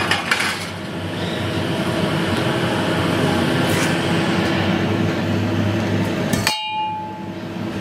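Steady workshop machinery noise with a low hum. Near the end comes a single sharp metallic clink with a brief ring as a steel pipe is set down against other steel pipes.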